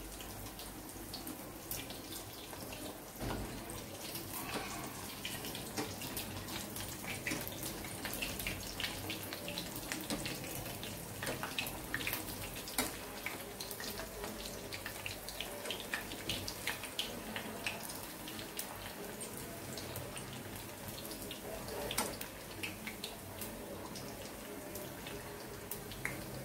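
Puris deep-frying in hot oil in a kadhai: steady sizzling with constant fine crackling and popping.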